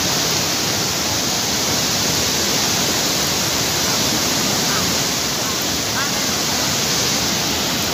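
Floodwater of a swollen river rushing in a steady, loud wash of noise.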